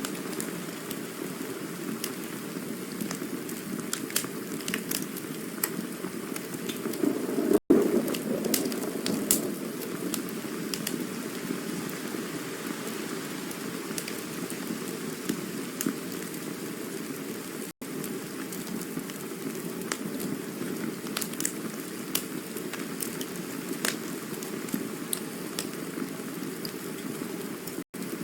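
Campfire burning: a steady low rush of flame sprinkled with scattered crackles and pops, swelling louder about seven seconds in. Three momentary dropouts to silence come about ten seconds apart.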